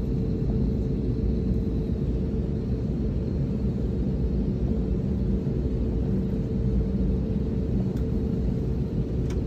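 Steady jet engine rumble heard inside the cabin of a Jetstar Airbus A320-family airliner on the ground, with a faint steady hum over it.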